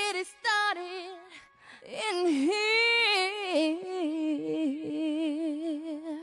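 Unaccompanied solo singing: a single high voice holding long, sliding notes with vibrato, with brief breaks between phrases.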